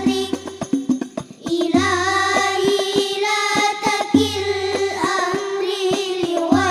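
Children's Al Banjari group singing sholawat in unison to hand-struck rebana frame drums, with dense drum strokes under the melody and a deep bass drum stroke about every two and a half seconds.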